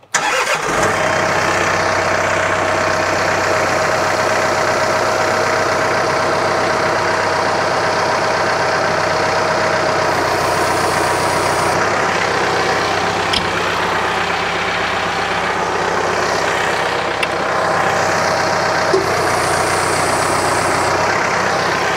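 John Deere 4066R compact tractor's diesel engine running steadily while the front loader raises and opens a root grapple. A steady whine runs through the first half.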